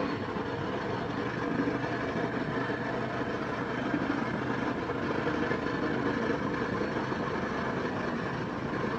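Motorcycle running at a steady cruising speed on a mountain road, its engine hum under an even rush of road and wind noise.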